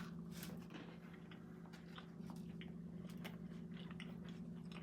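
Faint crunching and chewing of a bite of s'more, with scattered small crisp clicks, over a steady low hum.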